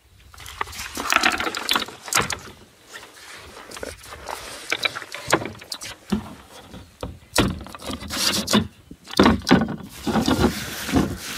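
Irregular plastic knocks and scrapes as the round hatch lid on a sit-on-top kayak's deck is twisted open, with rustling as a hand rummages in the hatch's fabric storage bag.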